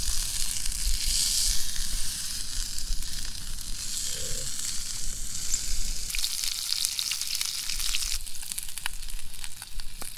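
Whole trout frying in a cast-iron skillet over a campfire: a steady sizzle, with a few sharp crackles in the second half.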